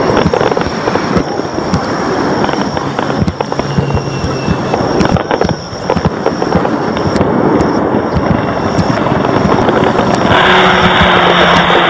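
Fireworks display: a dense, continuous barrage of shell bursts, bangs and crackling. About ten seconds in, the sound changes abruptly to a thicker, duller crackling hiss.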